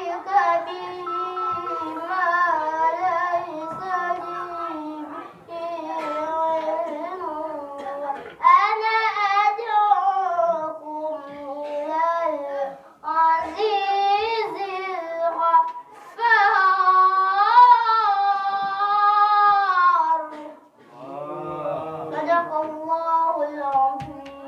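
A boy reciting the Quran in melodic tajwid style: long held phrases that rise and fall in pitch, each broken off by a short pause for breath.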